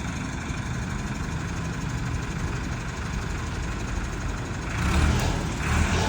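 Engine idling steadily with a low hum. Louder rough noise rises over it twice near the end.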